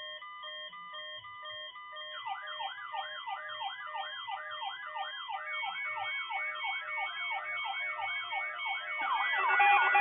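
Several NOAA weather radio receivers sounding their alert alarms together, set off by the weekly test tones. An alternating two-pitch beep starts abruptly. About two seconds in, rapid up-and-down warbling siren sounds join at about three a second. More alarms layer in and it grows louder near the end.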